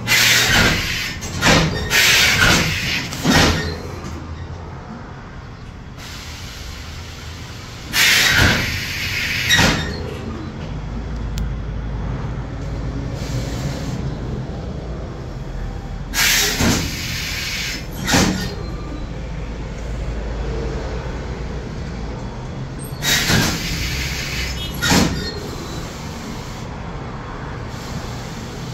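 Clusters of short, sharp hisses from laundry steam-pressing equipment, repeating every seven or eight seconds, over a steady low machine hum.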